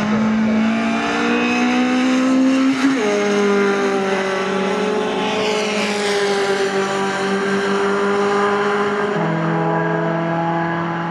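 Racing pickup truck engines at full throttle. One climbs in pitch for about three seconds, drops sharply at a gear change, then holds steady, with another drop about nine seconds in. A high whoosh falls in pitch around the middle as a truck goes by.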